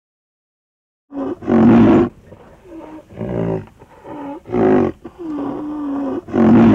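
Rhinoceros calling: a series of about five loud, pitched calls starting about a second in, one held at a steady pitch for about a second near the end.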